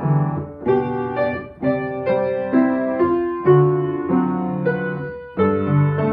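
A Samick grand piano being played: chords and notes are struck every half second to a second, and each one is left to ring on.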